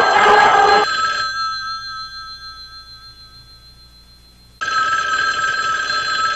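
Music ends about a second in and dies away, then a telephone starts ringing suddenly, a steady ring over the last two seconds.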